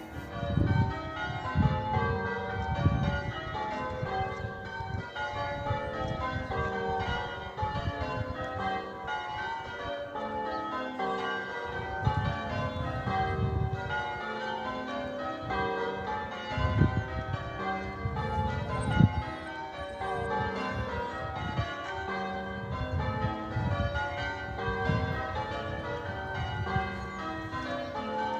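Church tower bells being rung in a continuous, rapid succession of strikes at different pitches, in the English change-ringing style. Low rumbles come and go underneath the ringing several times.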